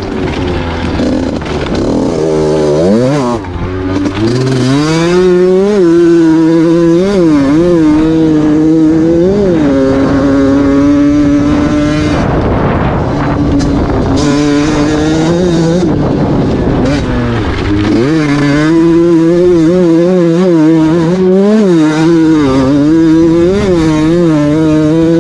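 A 50cc motorcycle engine running hard through its exhaust, its pitch climbing and falling over and over with throttle and gear changes, with a brief drop in revs about halfway through.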